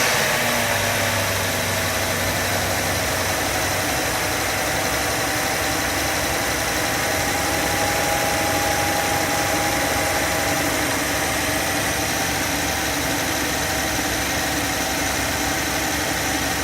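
BMW 550i's twin-turbo V8 idling steadily just after being started, with a low tone during the first four seconds that then fades.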